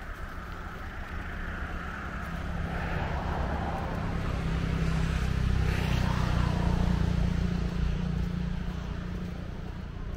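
An engine running with a low steady hum that grows louder toward a peak about six seconds in and then eases off.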